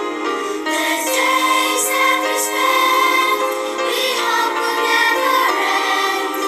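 Primary-school children's choir singing together, the voices holding sustained notes that step between pitches.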